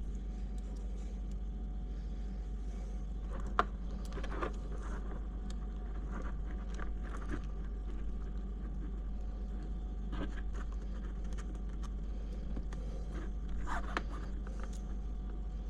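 Occasional small clicks and scrapes of hands and small tools working plastic and metal parts on an RC crawler chassis, the sharpest click about three and a half seconds in, over a steady low hum.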